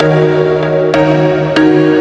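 Background music: held electronic chords that change about every half second, with a beat and no singing.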